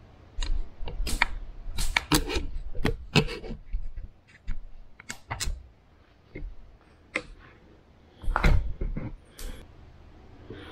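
Irregular clicks and knocks close to the microphone, with a low rumble under some of them: handling noise from the camera and phone being moved about.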